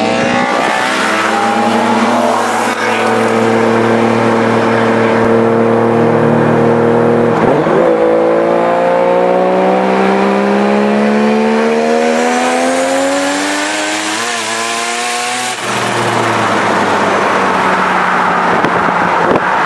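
Car engine heard from inside the cabin under way. It runs at a steady pitch, drops in pitch about seven seconds in as it shifts up, then climbs steadily in pitch under acceleration for several seconds. About fifteen seconds in it cuts off suddenly as the throttle is lifted, leaving road and wind noise.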